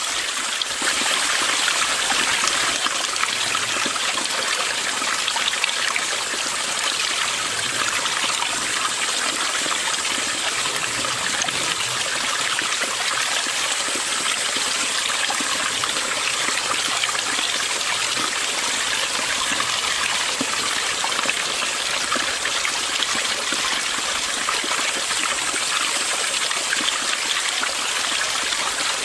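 Mountain stream's water running and trickling over rocks in a steady, unbroken babble.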